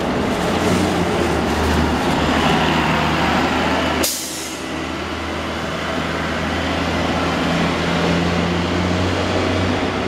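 Transit bus engine running as a Gillig Low Floor city bus pulls past close by. About four seconds in, the sound cuts sharply to a slightly quieter, steady engine hum from a bus further off, with street noise.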